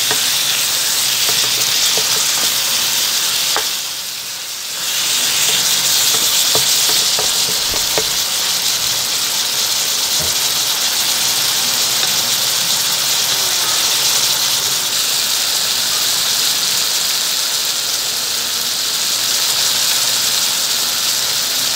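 Pork belly chunks and onions sizzling steadily as they sauté in a non-stick pan, with a few faint clicks. The sizzle drops away briefly about four seconds in, then comes back.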